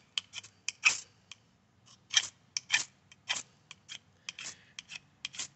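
A ferrocerium rod being scraped off-frame in short, sharp strokes, about twenty in all at an uneven three or four a second.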